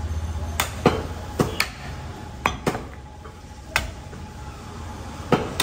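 Heavy butcher's cleaver chopping beef on a thick wooden chopping block: about eight sharp chops, several coming in quick pairs.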